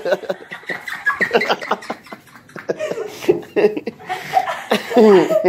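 People laughing hard in choppy bursts, with a loud laugh falling in pitch near the end.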